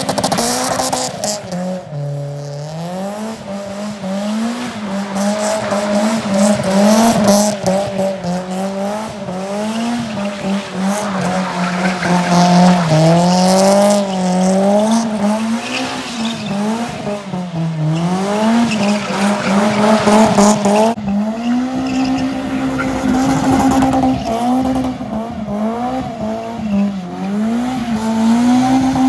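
Toyota Altezza's 3S-GE four-cylinder engine held high in the revs, its pitch rising and falling over and over as the car skids in circles, with the tyres squealing as the rear wheels spin.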